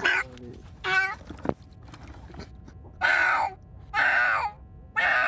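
A cat yowling and screeching in distress while being held down in a bucket: two short wavering cries about a second apart, then two longer, harsher screeches.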